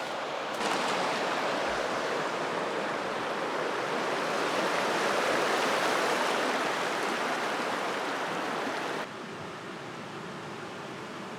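Creek water rushing steadily, louder from about half a second in and dropping suddenly near the end.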